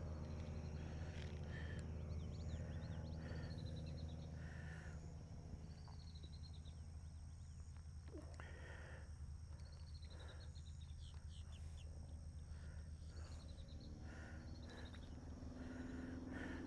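Birds chirping in repeated short, high, falling trills, over a steady low hum.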